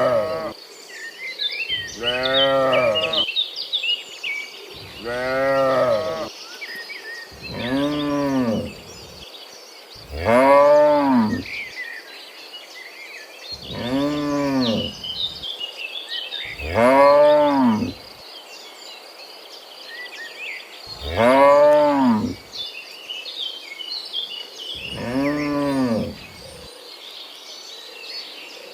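Cattle mooing again and again: about nine long moos, each rising then falling in pitch, a few seconds apart. A steady high insect whine and scattered bird chirps sit behind them.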